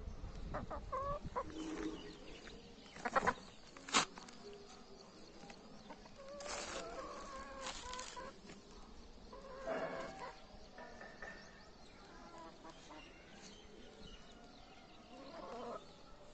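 Domestic hens clucking on and off, short scattered calls, with two sharp taps about three and four seconds in.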